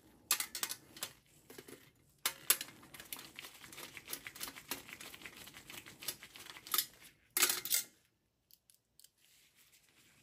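Screwdriver turning a screw out of a sheet-metal hard drive cage. There are a few clicks, then several seconds of fine rapid ticking and scraping of metal on metal, and a short louder clatter about seven and a half seconds in.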